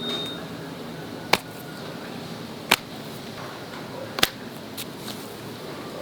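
Three sharp clicks, evenly spaced about a second and a half apart, over a faint steady background.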